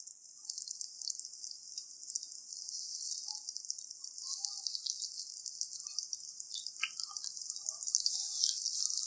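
Besan-batter-coated potato cutlets (aloo tikki) shallow-frying in oil over low heat: a steady sizzle, full of fine crackles.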